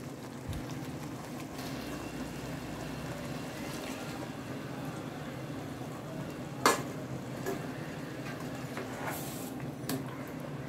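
Chicken salna gravy sizzling and bubbling in an open pressure-cooker pot as water is stirred into the coconut paste. A few sharp knocks on the metal pot, the loudest about two-thirds of the way through.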